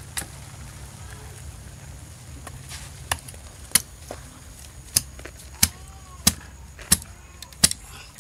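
Machete blade chopping into a wooden stick to split it: about seven sharp strikes, roughly one every two-thirds of a second, starting about three seconds in, over a low steady rumble.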